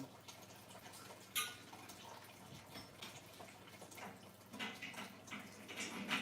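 Faint handling noise of metal desk parts being assembled: scattered small clicks and knocks, with one sharp metallic click about a second and a half in and a few softer knocks near the end.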